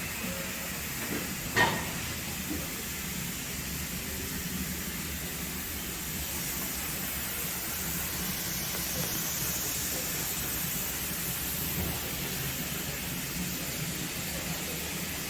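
Steam locomotive standing with a steady hiss of escaping steam and a low hum beneath. One sharp clank sounds about a second and a half in.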